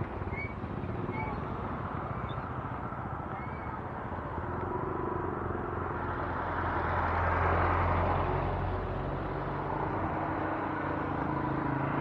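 A motorcycle engine running steadily under a rushing road-and-wind noise, with a few short high chirps in the first few seconds. The noise grows louder around seven to eight seconds in, then eases.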